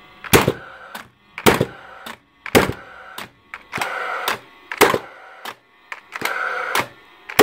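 Paslode IM350/90 gas-powered framing nailer firing nails into a board again and again, a sharp bang about once a second, with the gun's fan whirring between shots. The gun now fires, though the repairer says it is still not right.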